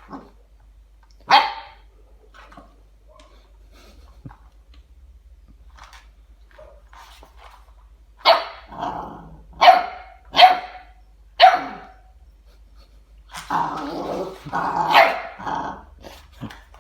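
Cane Corso puppy barking in play: one sharp bark about a second in, four quick sharp barks around the middle, then a run of lower, growly barks near the end.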